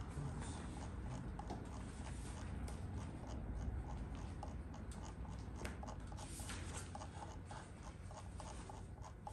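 Quiet classroom room tone: a steady low hum with scattered faint clicks and rustles.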